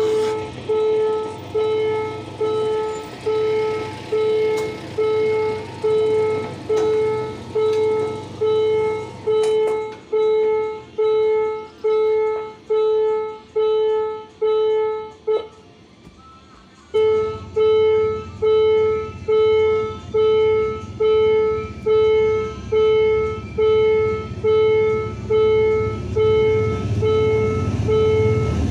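Railway level-crossing warning bell ringing in evenly repeated strokes, about one and a half a second, each one fading away. It stops for a second or so midway, then rings again with a low engine rumble underneath.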